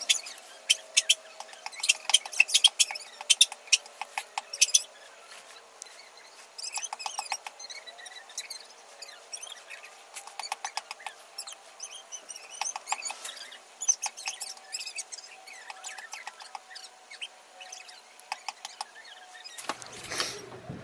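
Light metallic clicks and taps of the small steel parts of a Goodell-Pratt hand drill (spindle and pinion gear) being handled and greased, densest in the first few seconds, with faint high squeaks between.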